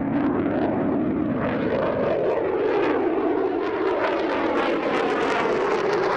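Fighter jet engine noise: a steady, loud rush with a slowly shifting tone.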